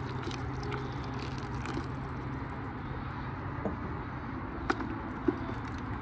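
Lactic acid bacteria serum poured from a jar into a bucket of blended anchovy slurry, then the slurry stirred with a garden stake. There are a few sharp knocks, the loudest a little over four and a half seconds in.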